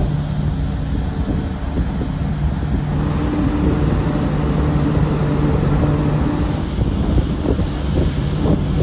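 Steady low drone of the ferry Excellent's engines and funnel exhaust, heard from the open deck, with wind rushing on the microphone. A low hum in the drone stops about two-thirds of the way through.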